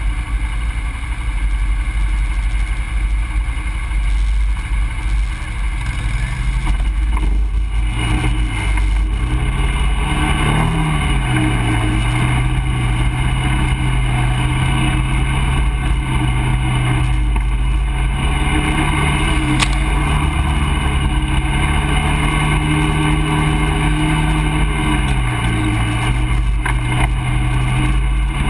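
ATV engine running under way along a rough trail over a heavy low rumble. Its pitch climbs about eight seconds in as it speeds up, holds steady, then drops briefly a few seconds before the end and picks up again.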